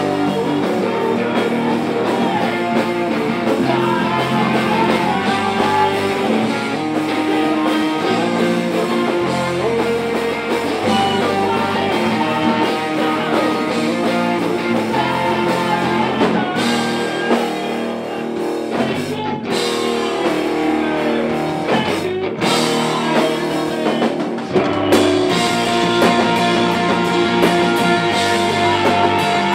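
Rock band playing, with electric guitars over a drum kit.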